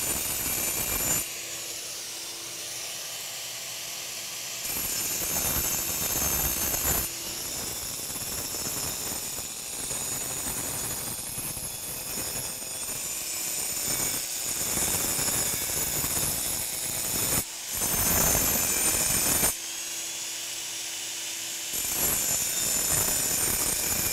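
4-inch angle grinder with a continuous-rim diamond blade cutting a curve into concrete, its high whine alternating with a rougher grinding sound as the blade bites in and eases off. A vacuum hums steadily alongside, pulling up the dust.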